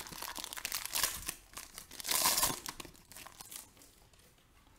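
Foil wrapper of a Panini Optic trading-card pack being torn open and crinkled by hand, a dense crackle that is loudest about two seconds in and dies away near the end.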